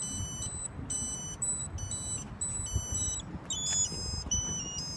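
Ka-band satellite terminal's pointing tone: a chain of short electronic beeps whose pitch steps up and down as the Karbon-75 dish is panned slowly, the aid used to peak the signal on the satellite. A low rumble lies underneath.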